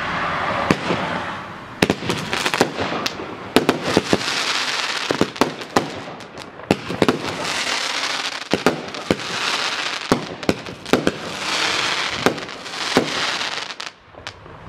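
Pyro-Art Vidar 12-shot 25 mm firework cake firing: sharp bangs from the shots and bursts over waves of loud crackling from the crackling tails and crackling palm effects, swelling up again every few seconds.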